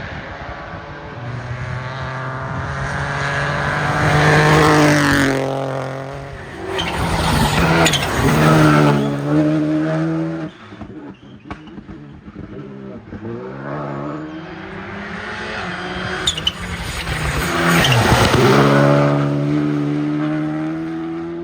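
Rally cars racing past at full throttle, engine pitch climbing through the gears and dropping away as each goes by. It is loudest around five to nine seconds in and again near eighteen seconds, with a lull in between.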